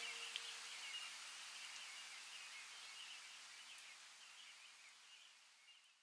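Faint outdoor nature ambience: a soft hiss with irregular high chirping, fading out steadily. The last notes of background music die away in the first half second.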